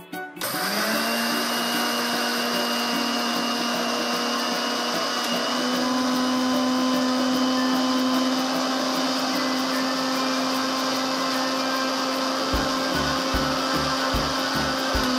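Electric mixer grinder with a stainless-steel jar running steadily, grinding sugar into a fine powder. The motor switches on about half a second in, then holds a steady whine that rises slightly in pitch about five seconds in.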